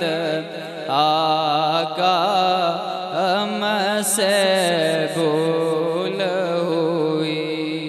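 A man's voice singing a naat, the Urdu devotional poem in praise of the Prophet, holding long, wavering, ornamented notes over a steady low drone.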